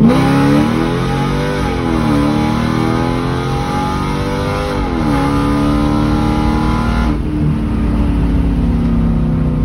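Mercedes CLK55 AMG's 5.4-litre V8 accelerating hard from a 20 mph roll, heard from inside the cabin. The engine note rises, drops sharply at upshifts about two and five seconds in, and levels off about seven seconds in.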